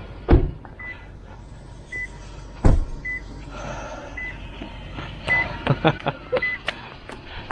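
A vehicle's electronic warning chime beeping at one pitch about once a second. Two loud thumps come about a third of a second and two and a half seconds in, and a run of sharp clicks and knocks comes near the end.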